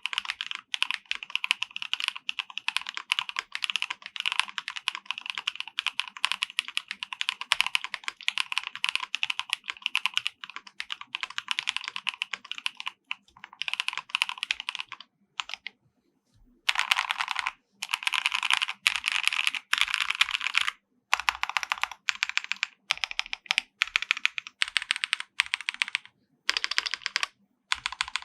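Fast typing on a KBD67 Lite R3 mechanical keyboard with a polycarbonate plate, case foam and GMK keycaps. A steady run of rapid keystrokes pauses about halfway through, then resumes in shorter bursts with brief gaps.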